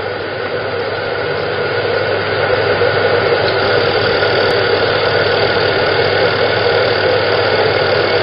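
Steady machine drone of running laser marking equipment, a low hum with a thin constant whine above it, unchanging throughout.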